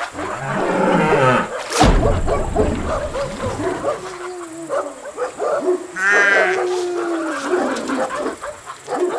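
Several farm animal calls one after another, the longest and strongest about six seconds in. A sharp knock with a low rumble comes at about two seconds.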